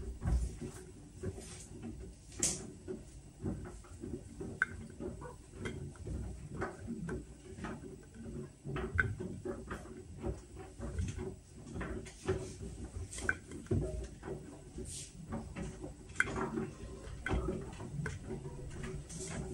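Whirlpool washing machine running a Steam Refresh cycle: a low steady hum with irregular clicks and knocks.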